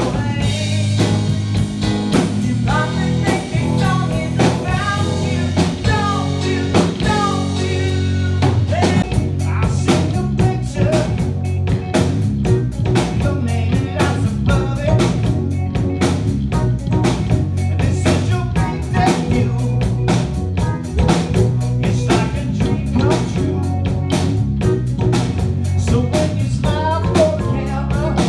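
A live yacht rock band playing: a woman singing over bass guitar and drum kit for the first eight seconds or so, then an instrumental stretch of bass and busy drumming, with the singing coming back in near the end.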